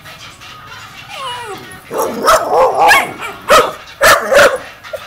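Young dog barking and yipping at a puppy: a whine falling in pitch about a second in, then from about two seconds a run of loud barks and yelps, some of them wavering in pitch.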